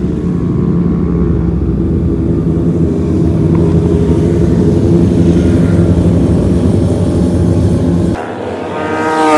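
Several racing motorcycles running on a circuit, their engines droning at a steady high pitch as they lap. Near the end one motorcycle passes close by, its engine pitch falling as it goes past.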